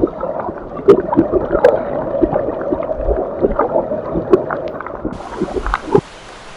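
Underwater bubbling and gurgling with scattered short clicks, as heard while snorkeling; it drops much quieter about a second before the end.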